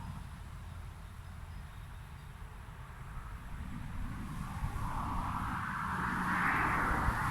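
A car driving past: a hiss of tyre and engine noise swells from about halfway through to a peak near the end, over a low steady rumble.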